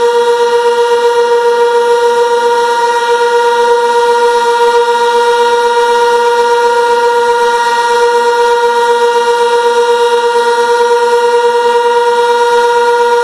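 Sentry 16V1T-B outdoor warning siren sounding its steady alert tone at full speed: one loud, unchanging pitch with a fast, regular waver in loudness.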